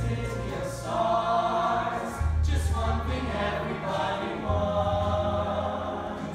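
Youth show choir singing sustained notes in harmony over instrumental accompaniment with a steady bass line; the voices come in about a second in.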